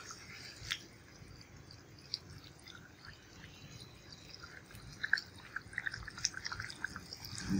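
Wooden spatula stirring a thick, simmering mutton curry in a pot, giving faint wet clicks and pops, mostly in the second half.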